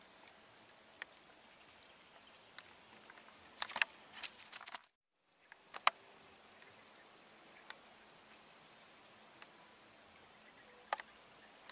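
Steady high-pitched drone of insects, with a cluster of sharp clicks about four seconds in, another near six seconds and one near the end; the sound cuts out for a moment about five seconds in.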